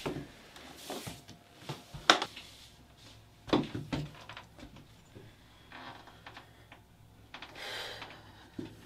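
A person moving about and getting up in a small room: scattered knocks, clicks and rustles, the sharpest a click about two seconds in and a heavier knock a little after three seconds.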